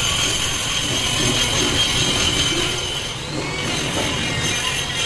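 Handheld electric straight grinder running steadily with a high whine, its grinding stone screeching against the steel inside the spindle bore of a truck's rear axle housing, grinding out the broken spindle end.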